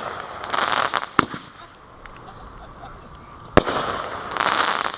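Fireworks going off: two sharp, loud bangs, about a second in and about three and a half seconds in, with short bursts of hissing crackle around them.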